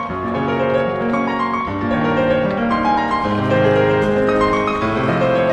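Piano music: a melody over held chords, the notes changing about once a second.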